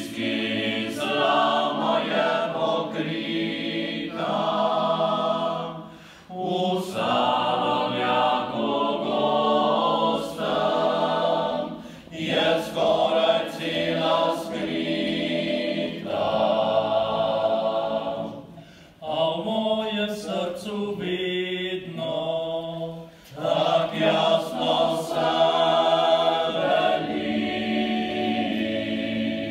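Small male vocal ensemble singing a cappella, in phrases with short breaks between them.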